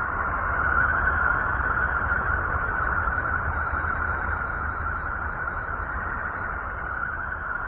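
Sonified space-probe recording presented as a planet's sound: a steady, eerie rushing drone, strongest in a mid-pitched band over a low rumble, swelling slightly about a second in and easing back later.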